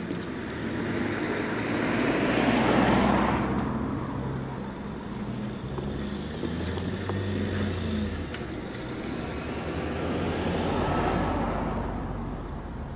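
Cars and a van driving over a level crossing one after another: tyre and engine noise swells as a vehicle passes about two to three seconds in, an engine hums at a steady pitch in the middle, and a second pass swells near the end.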